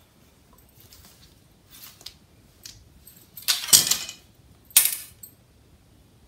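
A long tailor's ruler picked up and laid across cloth on a hard floor: faint rustles of cloth, then a sliding scrape and clatter about three and a half seconds in, and a sharper knock about a second later.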